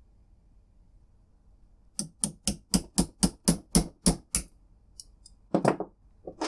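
A hammer tapping a steel pin punch about ten times in quick, even succession, roughly four taps a second, to drive the bolt knob off a rifle's extended bolt handle. A single knock follows near the end.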